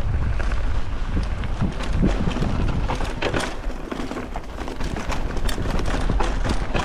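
Wind buffeting the microphone during a fast downhill mountain-bike descent, with irregular knocks and rattles from the bike running over rough trail.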